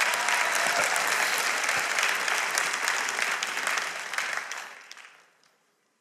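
Congregation applauding: many hands clapping together at a steady level, then dying away over the last second or so before falling silent about five and a half seconds in.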